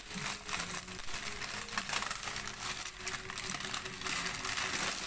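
Plastic packaging crinkling and rustling in quick, irregular bursts as a bagged set of kitchen knives and scissors is handled.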